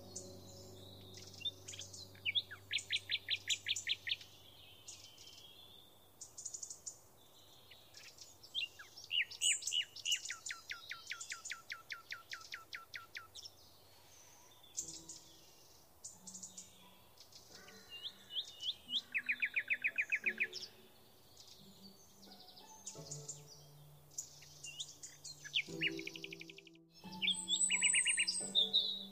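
Birds singing: several runs of rapid repeated trill notes lasting a few seconds each, with short chirps in between. Low steady tones sound underneath.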